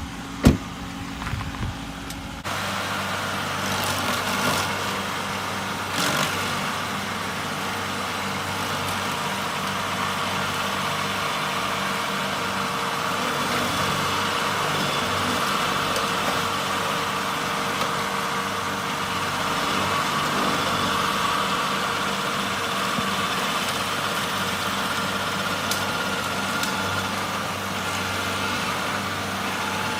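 Stump grinder running at a steady engine speed as it grinds out tree stumps and roots. It comes in suddenly at full level about two and a half seconds in, after a single sharp knock just after the start.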